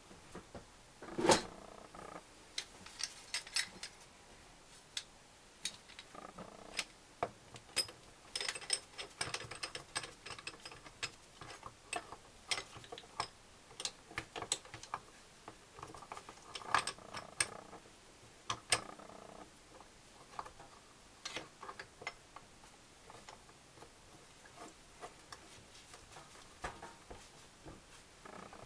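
Metal hand tools clinking and knocking against the parts of a dismantled NSU Max 250 motorcycle engine as it is taken apart with a spanner and a puller: a string of scattered sharp clicks, the loudest about a second in.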